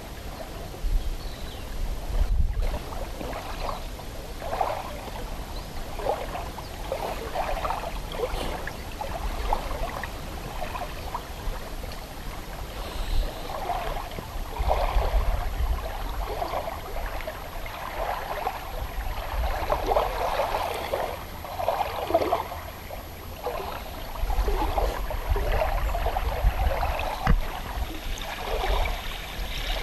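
Small lake waves lapping and sloshing over a pebbly shore in an irregular run of soft splashes.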